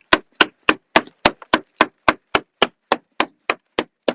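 Thick ice crust on a car being struck over and over to break it up: sharp, hard knocks at a steady pace of about three and a half a second.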